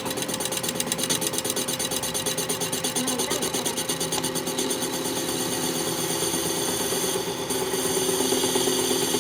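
A workshop machine running steadily with a fast, even rasping rhythm, its tone growing a little stronger about seven seconds in.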